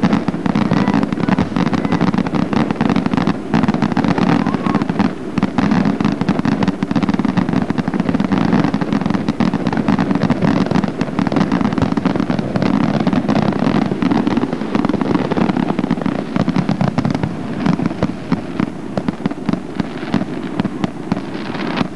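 Consumer fireworks fountains burning close by: a dense, continuous crackling and popping of sparks, without a break.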